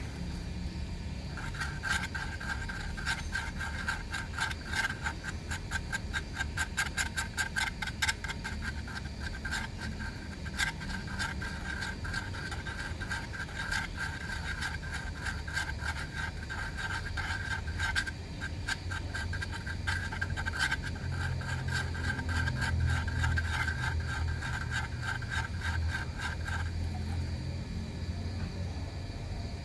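Rapid, even back-and-forth rasping strokes of a hand tool working a small part, several strokes a second with a ringing edge. They stop a few seconds before the end.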